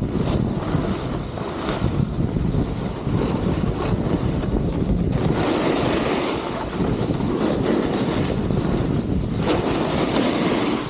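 Wind rumbling on the microphone, with the hiss of a snowboard sliding and carving over snow, swelling and fading several times as the board turns.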